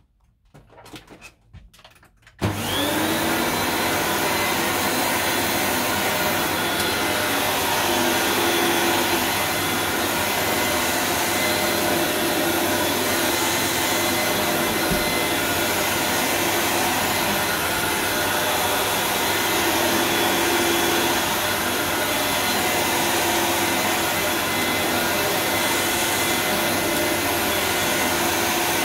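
Dyson DC01 De Stijl bagless upright vacuum cleaner, switched on about two and a half seconds in after a few faint clicks: its motor whines up to speed, then runs steadily while it is pushed over carpet.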